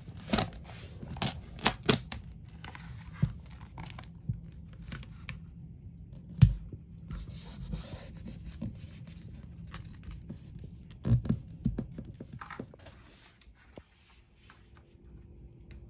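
Handwork on peel-and-stick vinyl backsplash tiles: rustling and tearing of the backing paper and tile sheets, scraping, and scattered sharp taps and knocks, the loudest about six seconds in and again around eleven seconds. Near the end it quiets to a faint steady hum.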